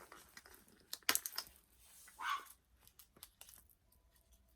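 Small clicks, taps and brief rustles from hands handling a doll and its plastic packaging, with a sharp click about a second in and a short crinkly rustle a little after two seconds.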